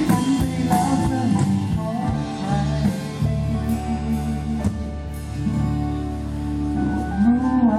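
Live pop band heard through a concert PA at a sound check: guitar and bass with sustained chords, and a male voice singing held, gliding notes.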